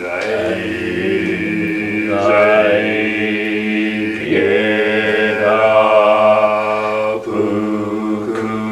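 Two men chanting a short Soto Zen verse in Sino-Japanese, in unison on a nearly steady pitch, each syllable held for a second or two.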